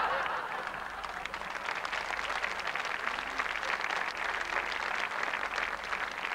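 Studio audience applauding in response to a punchline. A swell of crowd noise at the start turns into dense, steady clapping.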